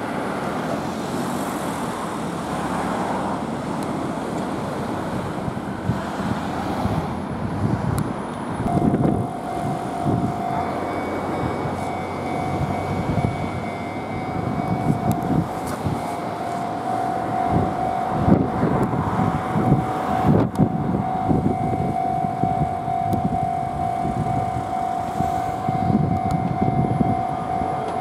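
Cars passing on a road, then about nine seconds in an Enoden railway level-crossing warning bell starts ringing and keeps on ringing, with the crossing barrier down for an approaching train.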